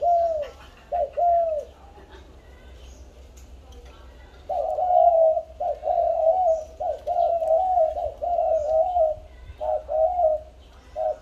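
Two spotted doves cooing against each other in repeated low coo phrases. A few coos open, a pause of nearly three seconds follows, then a long, dense run of coos from about four and a half seconds in, with short breaks near the end.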